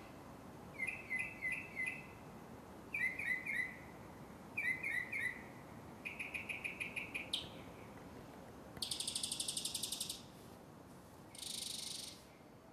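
Quiet bird chirps come in repeated groups of about four quick high notes. Midway they give way to a fast trill, then to a buzzing insect-like trill lasting about a second, and a short hiss near the end.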